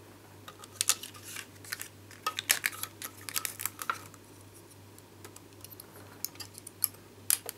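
Die-cut cardstock shapes and thin metal cutting dies being picked and pulled free on a die-cutting machine's magnetic platform: a run of small clicks and paper crackles, thickest in the first few seconds, with a sharper click near the end.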